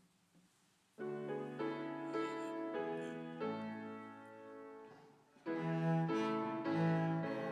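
Slow instrumental music of long held notes, beginning about a second in after a hush, easing off briefly and then returning louder.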